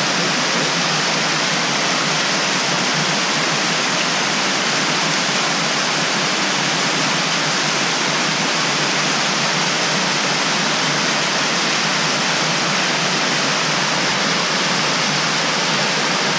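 Benton Falls, a tiered waterfall, rushing steadily down layered rock into a shallow pool, heard close to its base as a loud, even roar of falling water.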